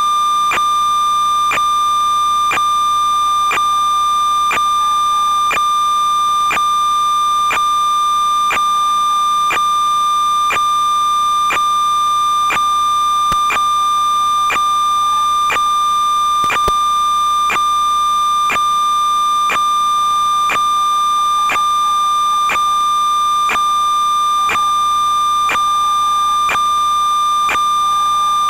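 Steady high electronic tone with a faint click about once a second, the pitch and level unchanged throughout. It is the audio track of an analog FPV receiver's video recording, and it does not follow the quad's throttle.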